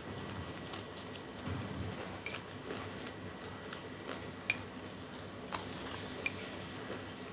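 Spoon stirring slate pencil powder and lumps of banslochan in a glass bowl: soft scraping with a few sharp clicks.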